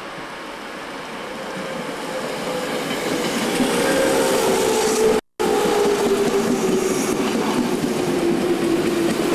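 JR 205-series electric commuter train running past along the platform, its rumble growing louder as it comes in, with a whine that slowly falls in pitch. A brief dropout cuts the sound for a moment about five seconds in.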